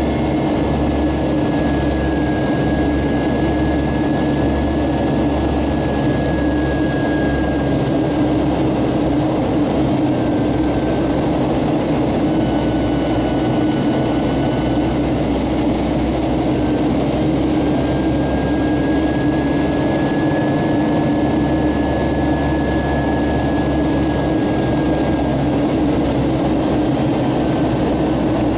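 Jet airliner cabin noise in the climb after takeoff: a steady engine drone and rushing airflow heard from inside the cabin, with a faint high whine that wavers slightly in pitch.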